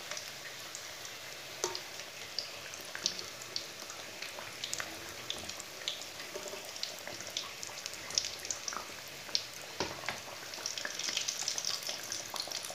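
Samosas deep-frying in hot oil on a low flame: a steady sizzle with many small pops and crackles, growing denser near the end.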